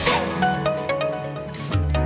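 Background music: a melody of short struck or plucked notes, with a cymbal-like swell at the start and a low bass coming in near the end.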